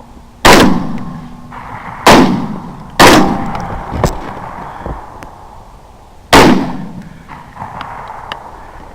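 Four gunshots, the first three close together and the last a few seconds later, each with a long echoing tail.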